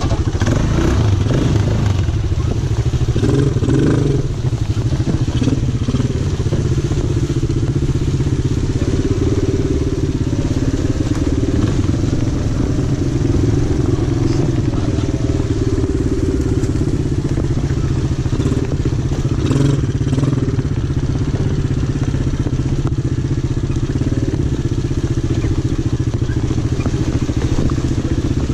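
Small quad-bike (ATV) engines running at a steady trail-riding pace, the nearest one heard from its own rider's seat. There are occasional knocks and clatter as the machine rides over rough ground.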